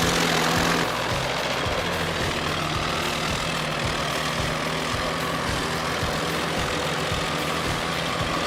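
A machine engine running steadily under background music, a little quieter after a sudden change about a second in.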